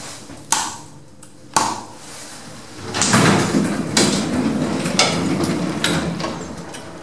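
Lift doors and mechanism working: two sharp knocks, then a louder rumbling run with several clicks that fades towards the end.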